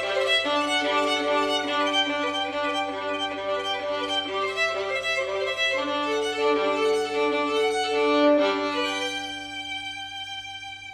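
String quintet of two violins, viola and two cellos playing classical music with long bowed notes. The phrase swells about eight seconds in, then closes on a held chord that fades away near the end.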